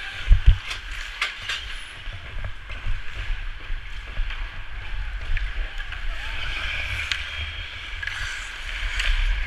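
Ice hockey skates scraping on the ice and sticks clacking, with sharp knocks scattered through, two heavy ones about half a second in. Under it runs a steady low rumble of wind and movement on the skater's body-worn camera.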